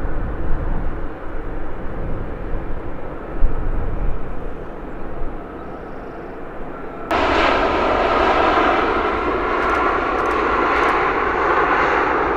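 Jet airliner engine noise: a low, uneven rumble for about seven seconds, then it jumps abruptly to a louder, steady rushing jet sound that carries on to the end.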